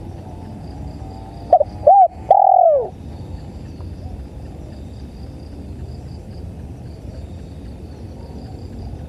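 Spotted dove cooing one three-note phrase about one and a half seconds in: two short notes, then a longer note that falls away at the end. Crickets chirp faintly over a steady low hiss throughout.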